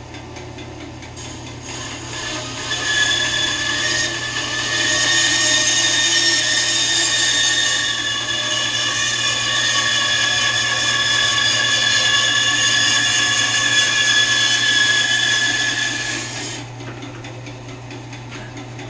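WEN 3962 10-inch bandsaw running with a steady motor hum while its blade cuts a disc off the end of a camphor log, a steady high-pitched sawing noise. Near the end the cut finishes and the disc comes free, leaving the motor running on its own.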